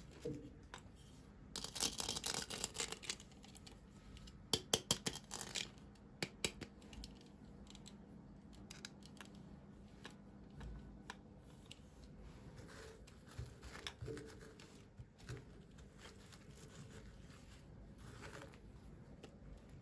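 Toy packaging being handled and opened: faint scattered clicks, snips and crinkles. There is a denser rustle about two seconds in and a quick run of sharp clicks around five seconds.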